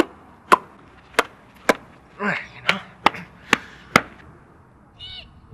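Sharp slaps of work-gloved hands smacked together, about eight over four seconds, roughly two a second.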